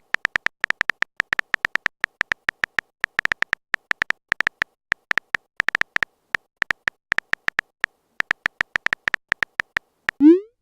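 Rapid, irregular clicks of a smartphone keyboard's typing sound, about five or six taps a second. Near the end comes a short rising swoosh: the sound of a message being sent.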